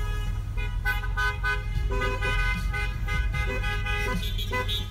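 Car horns honking in short, repeated toots at more than one pitch, over the steady low rumble of road and engine noise inside a moving car.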